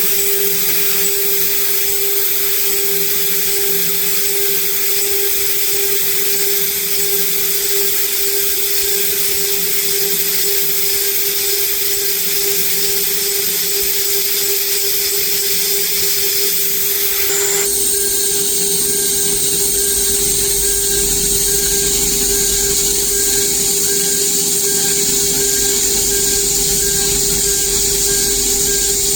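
PrintNC Pro CNC router's spindle running with a steady whine while milling a 6061 aluminium hex nut. About 17 seconds in the sound shifts abruptly and a low rumble joins in.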